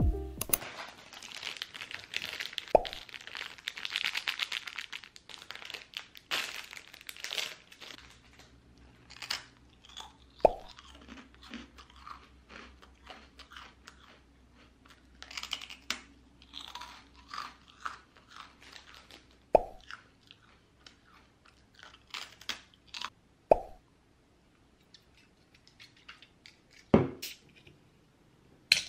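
A thin, crisp round cracker being bitten and chewed close to the microphone: a sharp crunch every few seconds, with quieter crackly chewing between. The first few seconds hold a fine scratching, like a pen on paper.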